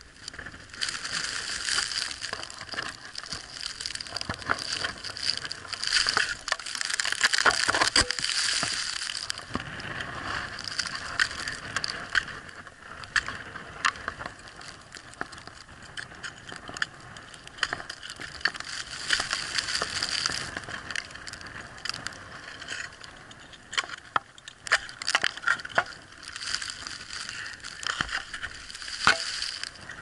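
Ice axe picks and crampons striking and kicking into snow-covered waterfall ice: an irregular string of sharp hits and crunches, over a steady rustling hiss that swells and fades several times.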